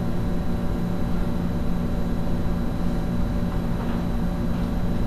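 Steady low electrical or mechanical hum with a low rumble underneath, the background noise of a hall, unchanging throughout.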